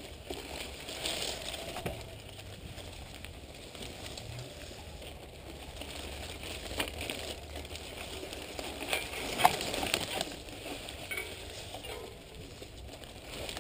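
Mountain bike rolling along a narrow dirt singletrack through brush: a steady crackling and rustling of leaves and branches scraping past, with scattered clicks and knocks from the bike over the bumps, the sharpest about nine seconds in.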